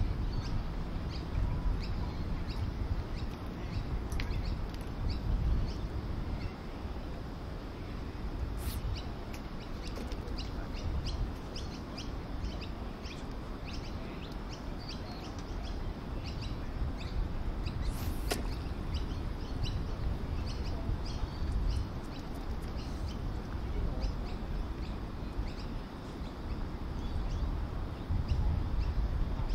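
Small birds chirping in many short, high calls, over a steady low rumble. Two sharp clicks, about nine and eighteen seconds in.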